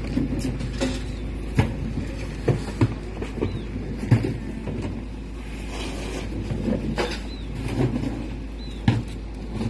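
Garbage truck engine idling with a steady low drone, while rubbish and a plastic wheelie bin are handled at the truck's rear, giving irregular knocks and clatters.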